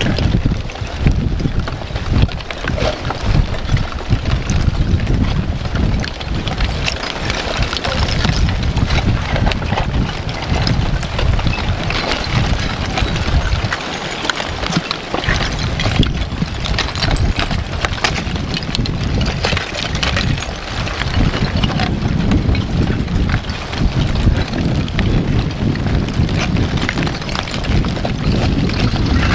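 Wind buffeting the microphone with a gusty low rumble, over a steady crackling and clinking from the front of an advancing blocky lava flow as its cooling crust breaks and loose blocks shift.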